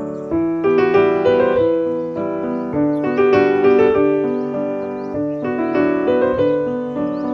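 Piano music playing a flowing melody of held notes. Faint high bird chirps, which the title puts down to bulbuls, come through behind it.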